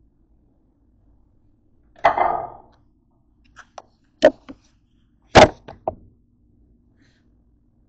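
Handling noise on a kitchen counter: a short rattle about two seconds in, then a string of sharp knocks and clatters as things are set down, the loudest about five and a half seconds in.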